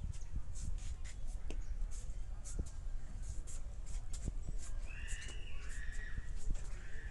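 Birds chirping: many short high chirps throughout, with a few longer calls about five to six and a half seconds in, over a steady low rumble.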